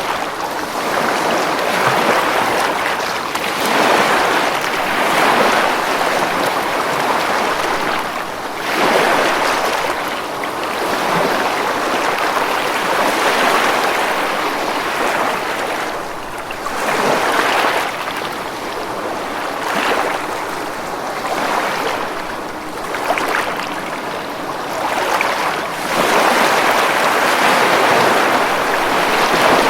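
Ocean waves breaking on a beach: a continuous rush of surf that swells and falls every few seconds.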